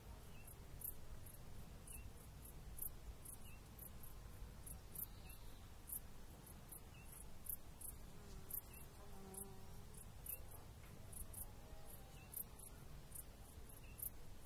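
Faint, very high, short insect chirps repeating about twice a second, like a cricket, over a low rumble of wind.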